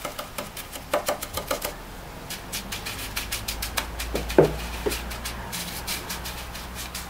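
Wet pumice-and-cement stucco being patted onto a concrete oven dome by a gloved hand: irregular soft slaps and taps, several a second.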